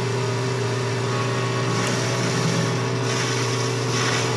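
Metal lathe running steadily while turning a steel gear blank, with a constant motor hum. The hiss of the cutting tool rises about two seconds in and again from about three seconds on.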